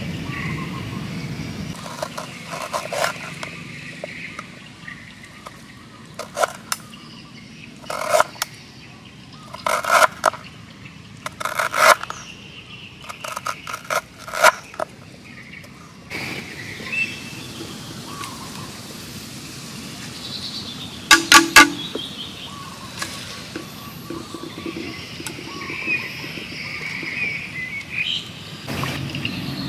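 A cleaver chopping on a wooden cutting board: sharp separate strokes, single and in pairs, through the first half. After that, birds chirp in the background, broken about two-thirds of the way through by a quick cluster of three loud knocks, the loudest sound here.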